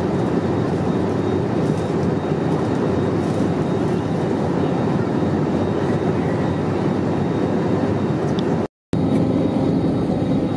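Steady cabin noise inside an Airbus A321neo in flight: the even rush of engines and airflow. It cuts out for an instant about nine seconds in, at an edit, then carries on the same.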